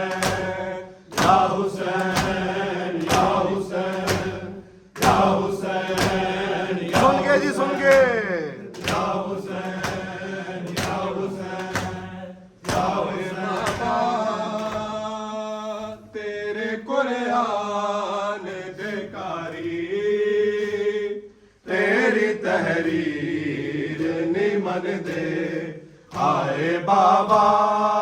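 Voices chanting a lamentation (noha) with rhythmic matam chest-beating: sharp hand slaps on the chest about every 0.6 s for the first half. After that the slaps thin out and the drawn-out chanting carries on.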